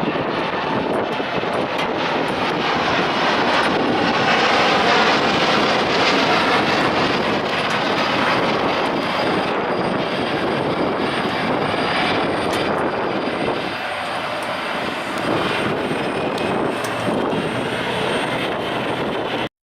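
Boeing 787 Dreamliner's jet engines at takeoff thrust: a steady, loud roar, loudest about five seconds in and easing a little later on.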